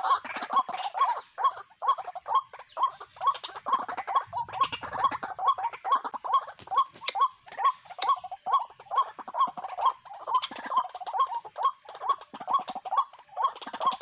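White-breasted waterhens giving their repetitive calls, short notes repeated about two to three times a second in a steady, unbroken series.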